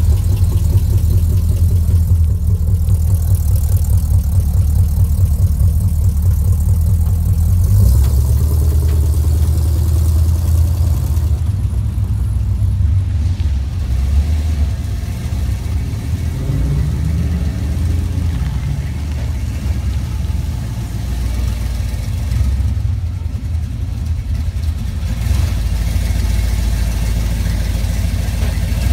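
Classic Chevrolet C10 pickup truck engines idling with a fast, even low pulse. About halfway through, one engine's note rises briefly as a truck pulls away, under the continuing idle.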